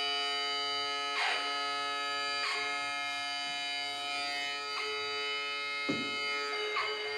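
Electronic drone from the Exo.Rosie wearable electronic instrument: a dense chord of steady held tones with a bagpipe-like buzz, broken about five times by short noisy swishes.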